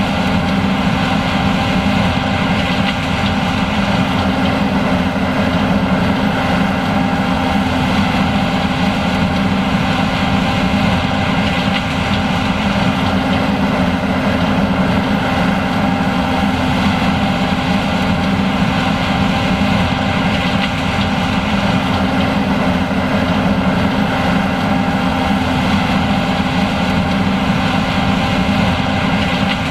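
John Deere S780 combine running steadily while harvesting corn: a constant engine drone with several steady tones over it.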